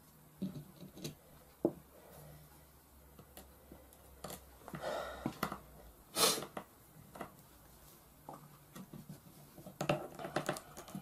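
Small metal clicks, taps and short scrapes of hex keys and a small screwdriver working the screws and parts of a Brocock Concept Elite air rifle's action. The loudest knock comes about six seconds in, with a quick run of clicks near the end.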